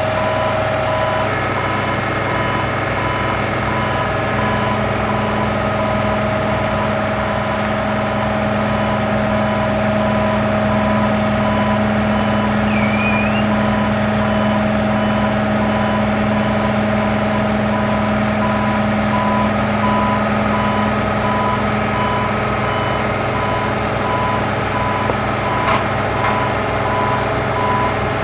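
Nagano Kogyo NUZ090D articulating boom lift running steadily while its boom folds down, with a continuous machine hum and an evenly repeating warning beep. A short chirp comes about halfway through.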